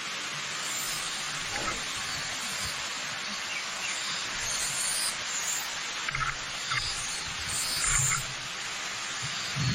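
Waterfall rushing steadily, with birds chirping in short calls every second or so over the water, and a few low rumbles from the falling water.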